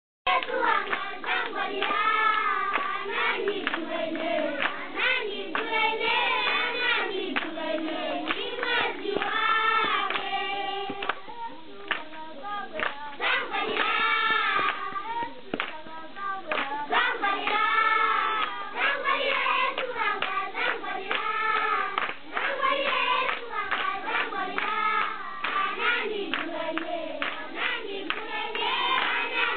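A large group of children singing together, clapping their hands along with the song.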